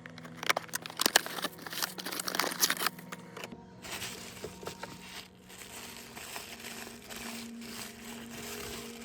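Packaging of a Littlest Pet Shop blind box being opened and handled: crinkling and crackling, sharp and busy for the first few seconds, then softer rustling.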